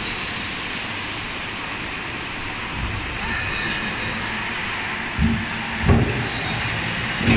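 Log rotary veneer peeling line running: a steady industrial machinery din, with three short heavy knocks in the last two and a half seconds.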